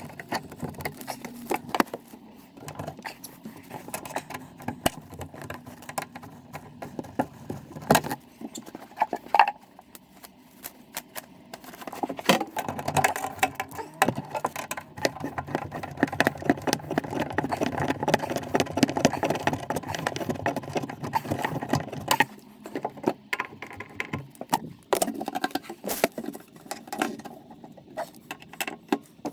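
Hand tools and metal fittings clinking, knocking and rattling while the sink is tightened down during a tap installation, with a longer stretch of steady rattling in the middle.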